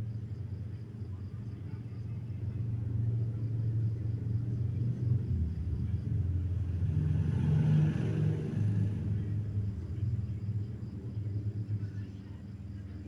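Motorcycle engine running with a low rumble, growing louder to a peak about eight seconds in, then fading again, as when the bike passes by.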